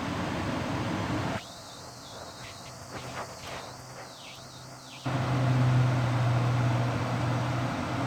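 Goodman gas furnace running through a hard reset: an even rushing noise at first, then about five seconds in a steady low hum switches on suddenly and becomes the loudest sound.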